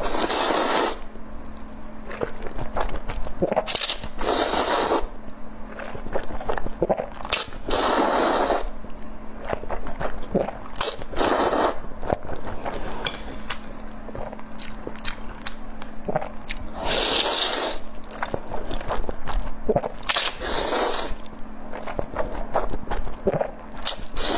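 A person eating chicken curry with noodles close to the microphone: steady chewing and small utensil scrapes and clicks, broken every few seconds by a noisy burst about a second long.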